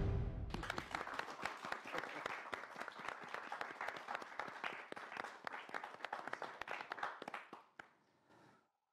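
A small group of people applauding, many separate hand claps that thin out and die away about seven and a half seconds in.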